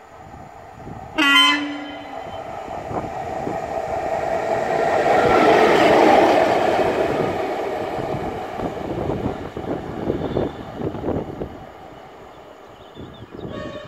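Škoda class 181 electric locomotive, running light with no train, gives one short horn blast about a second in. It then passes close by, its wheels rumbling and clicking on the rails, loudest about six seconds in and fading as it moves away.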